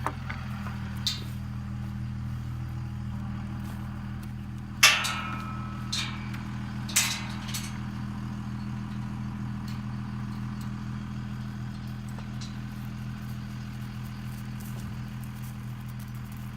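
An engine running steadily at an even pitch, with a few sharp knocks and clanks about a second in and between five and seven seconds in, the one near five seconds the loudest.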